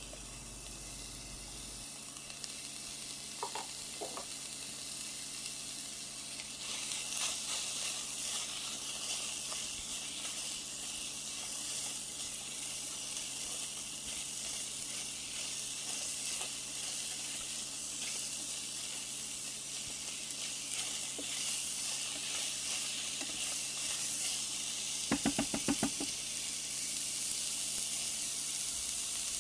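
Onions and vegetables sizzling in a dry saucepan with no oil, stirred now and then; the sizzle grows louder a few seconds in and stays steady. Near the end comes a brief rattle of quick knocks.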